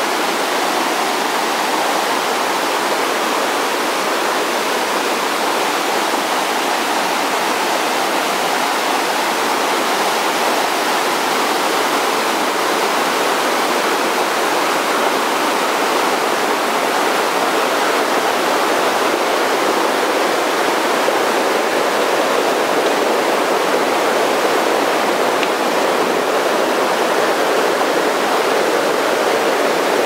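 Swollen, muddy river rushing over rocks in white-water rapids: a loud, steady rush of water with no breaks.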